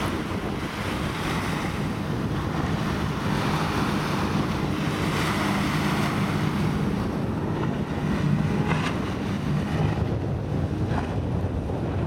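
Outboard motor of a Parker 2320 SL cabin boat running at speed as the hull planes through the chop, a steady low drone under waves and heavy wind noise on the microphone.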